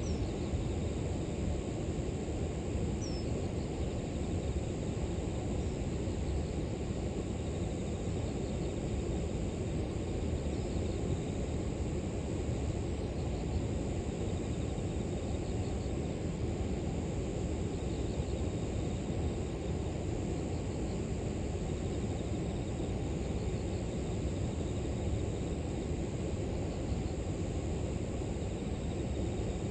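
River water flowing, a steady low rushing. A few faint, short, high bird chirps come in the first ten seconds or so, and faint insect trilling is heard in the later part.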